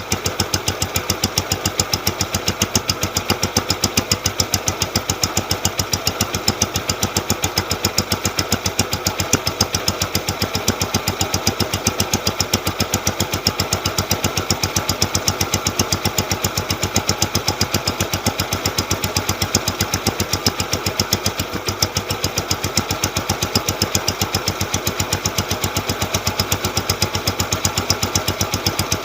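Diesel engine of a 350cc motorcycle running steadily at a constant speed, with a rapid, even diesel knock.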